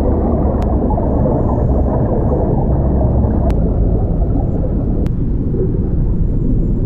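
A loud, steady low rumble, dense and noisy, with a few faint ticks spread through it.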